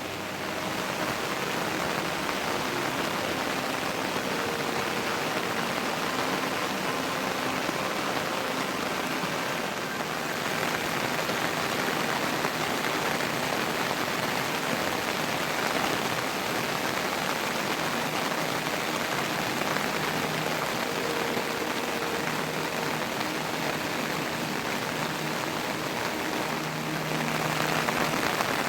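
Heavy monsoon rain falling steadily, an even dense hiss that grows a little louder near the end.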